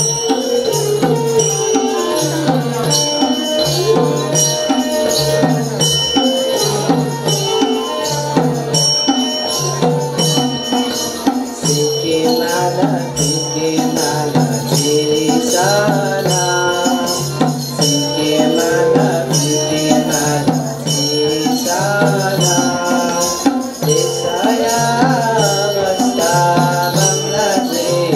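Live Newar folk dance music: a harmonium melody over a steady, repeating percussion beat, with group singing coming in about halfway through.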